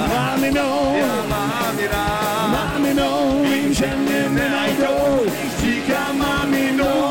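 Rock band playing live, a male voice singing over drums, bass and electric guitar.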